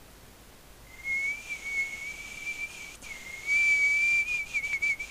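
A person whistling, holding one high note with small wavers, starting about a second in and breaking off briefly midway. A few short clicks come near the end.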